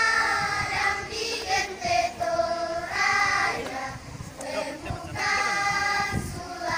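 A group of children singing together, in long held phrases with brief pauses between them.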